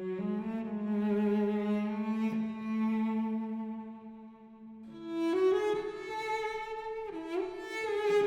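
Slow bowed-string music led by cello, with violin above: long held notes that fade about four seconds in, then swell back fuller and brighter a second later.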